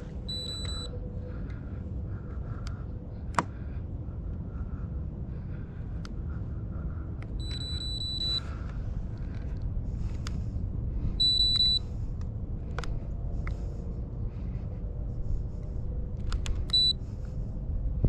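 Four high electronic beeps from a small device: a short one at the start, a longer one of about a second around the middle, then two short ones later. Under them is wind rumbling on the microphone, with scattered sharp clicks, the loudest about three seconds in.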